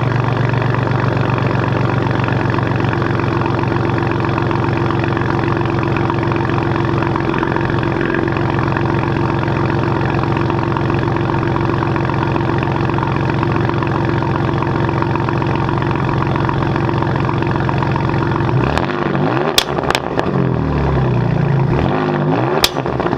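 2018 Ford Raptor's 3.5-litre twin-turbo EcoBoost V6 running through a custom Borla exhaust, idling steadily, then near the end revved in several quick blips that rise and fall, with a few sharp pops.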